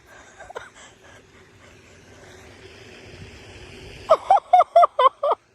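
A man laughing excitedly in a quick run of about six short, falling 'ha' sounds near the end, after a few seconds of soft, steady hiss.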